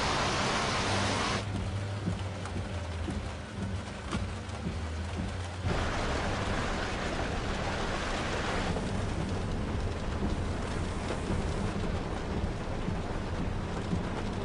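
Heavy rainstorm sound effects: a steady rush of rain and wind over a low, steady hum. The rush drops and swells abruptly a few times with the picture cuts.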